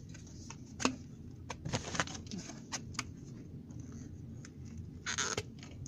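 Plastic toiletry packaging and bottles being handled: scattered light clicks and taps, with a short rustle near the end.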